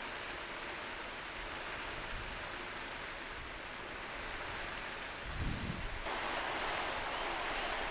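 Heavy monsoon rain pouring down steadily, with a brief low rumble a little past five seconds in; the rain gets louder about six seconds in.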